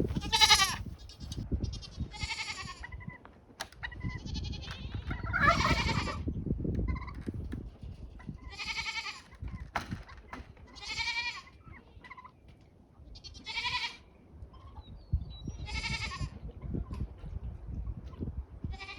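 Goats bleating over and over: about nine high, wavering bleats, each a second or less long and spaced a second or two apart. The loudest comes about six seconds in.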